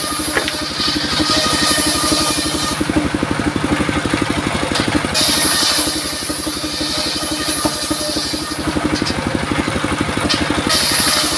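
A 28 hp diesel engine runs steadily, driving the circular saw blade of a mobile sawmill. The blade cuts along a wooden plank with a high hiss over the engine in three stretches: at the start, from about five to nine seconds in, and again near the end.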